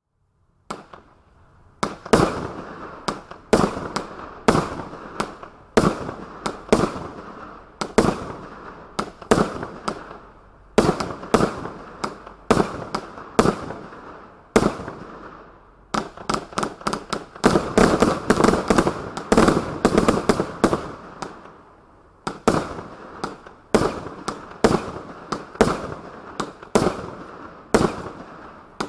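A 108-shot consumer fireworks cake (Penalty) firing: a steady string of sharp bangs about two a second, each trailing away briefly, with a quicker, denser run of shots a little past the middle. It starts about a second in.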